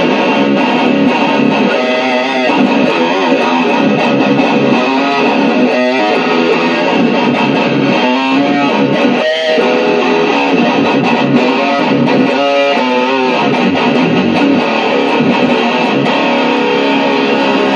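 Ibanez S420 electric guitar played through an amplifier: a continuous run of riffing notes at a steady, loud level.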